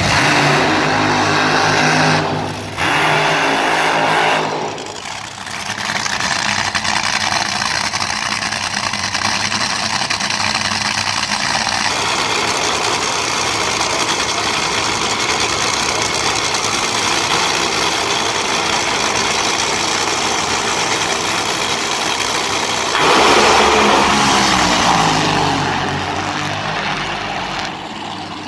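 Top Fuel dragsters' supercharged nitromethane V8s: two bursts of burnout revving near the start, then a long stretch of loud idling. About 23 s in both cars launch at full throttle, the loudest moment, and the sound fades as they run away down the track.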